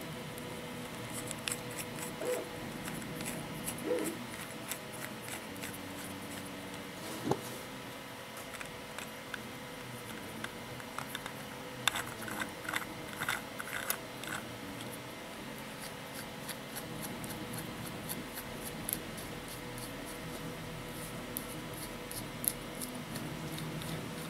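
Hard 3D-printed plastic nut and bolt parts being handled and screwed together: scattered light clicks and ticks of plastic on plastic, with a quicker run of ticks about halfway through as the threads turn.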